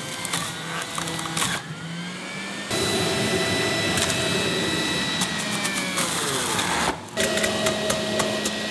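Electric centrifugal juicer motor running as fruit and vegetables are pushed down its feed chute. Its whine drops in pitch as it takes the load, over a scatter of crackling from the produce being shredded.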